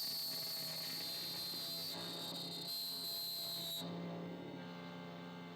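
Maverick key-cutting machine milling a key blade: a steady high-pitched whine with a thin hiss above it, which cuts off about four seconds in, leaving a low steady hum.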